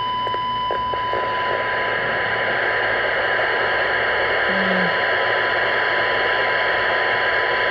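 CB radio receiver's speaker, at high volume, playing a steady 1 kHz AM test tone buried in loud static hiss. The hiss comes from the signal generator being turned down to a very weak level to test the Northstar NS3000's receive sensitivity.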